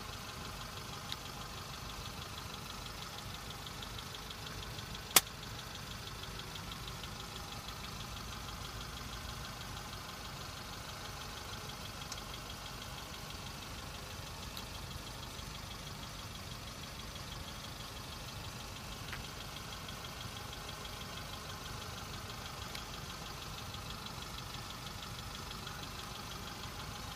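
A car engine idles steadily while the car's tyre creeps over water-filled rubber gloves. About five seconds in there is a single sharp pop as one of the gloves bursts under the tyre.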